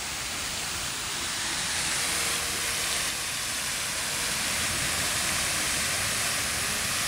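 Fountain jet spraying and splashing back into its pond: a steady rushing hiss of falling water.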